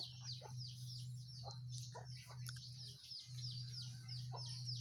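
Faint birds in the background: many short, high calls falling in pitch, about four a second, with a few lower, clucking-like calls among them, over a steady low hum.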